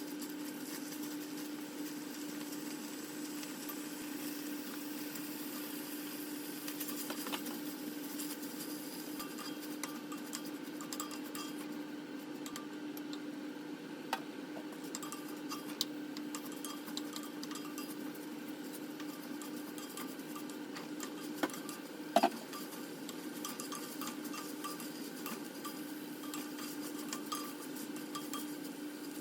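Kitchen utensils clinking and scraping against dishes and a pan while cooking, with a few sharper knocks about three-quarters of the way through, over a steady low hum.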